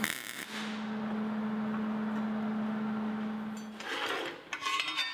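Electric arc welding on a steel frame: a steady buzzing hum that runs for about three and a half seconds and then stops. Near the end, steel pieces clink as they are laid down on a steel table.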